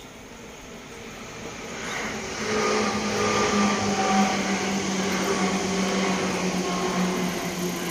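A train passing, its rumble and rush growing louder about two seconds in and then staying loud, with a few steady tones in it.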